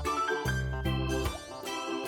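Background music: a bright, plucked, harpsichord-like melody over a bouncy bass line.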